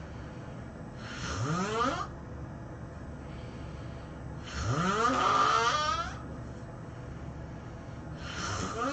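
A person snoring: three snores about three and a half seconds apart, each about a second long and rising in pitch as it goes.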